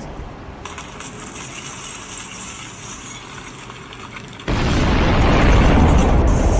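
A sudden deep boom about four and a half seconds in, followed by a heavy rolling rumble that slowly fades. The Ministry of Defence takes it for the sonic boom of a supersonic Indian Air Force test flight, reported as an Su-30.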